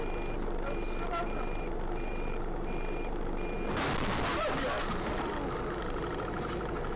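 A vehicle collision: an electronic warning beep repeats about one and a half times a second, then a sudden loud crash of impact hits about four seconds in and dies away over a second or two. A fast, faint ticking follows.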